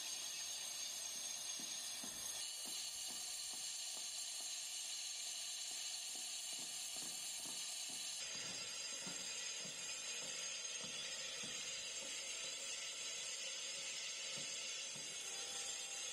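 Metal lathe turning a cast-iron truck brake drum, the tool cutting its inner face: a steady hiss with faint high whining tones and a faint low pulse two or three times a second. The tone of the hiss changes abruptly about eight seconds in.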